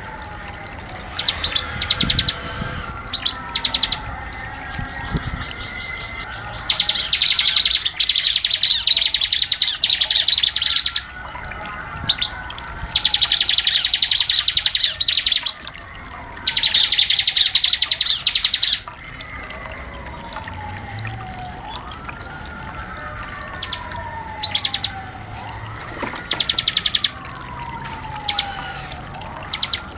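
Bar-winged prinia (ciblek) song: long, very rapid high trills of two to four seconds, the full 'ngebren' trill, with shorter bursts between. Under it a lower whistle slides down in pitch again and again, about every two to three seconds.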